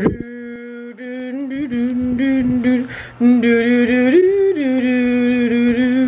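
A voice singing long, wordless held notes, mostly on one pitch, with a short rise to a higher note about four seconds in.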